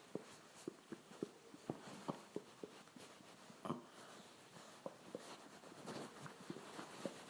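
Faint, irregular little pops and gurgles from a stomach freshly filled with a bottle of water.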